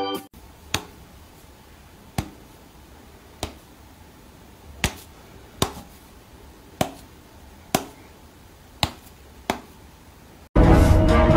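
A person's finger snaps: nine sharp single snaps at uneven intervals about a second apart, in a quiet small room. Loud music cuts in suddenly near the end.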